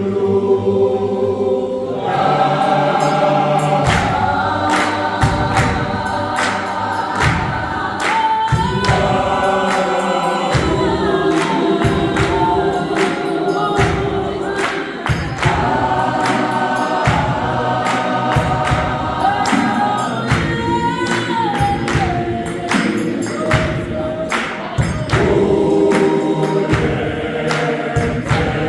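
Gospel choir singing in harmony, with a steady percussive beat of about one and a half strokes a second coming in about two seconds in.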